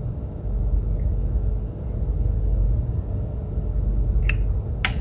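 Two short sharp clicks near the end, half a second apart: jumper wire pins being pushed into an Arduino Uno's header sockets. A steady low rumble runs underneath.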